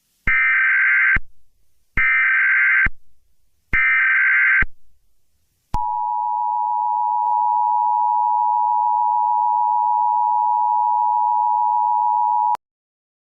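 Emergency Alert System signal: three short bursts of SAME header data about a second apart, then the steady two-tone attention signal held for about seven seconds before cutting off sharply.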